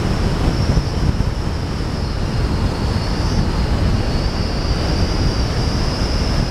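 Wind buffeting the camera's microphone during a chairlift ride: a steady, choppy rumbling noise with a thin, high, steady whine underneath.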